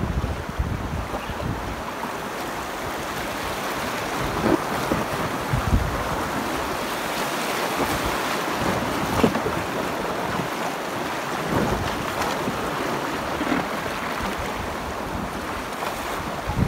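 Shallow river rapids rushing and splashing right around a packraft's bow as it runs through a rocky riffle. Low rumbling buffets on the microphone come near the start and again near the end.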